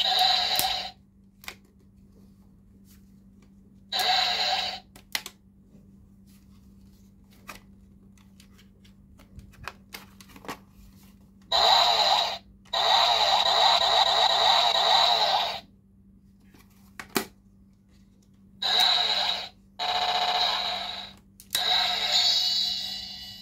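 Bootleg CSM Ride Booker toy playing its electronic sound effects through its small speaker in a string of short bursts, the longest about three seconds. Plastic clicks come between the bursts as the toy is handled and switched between its modes.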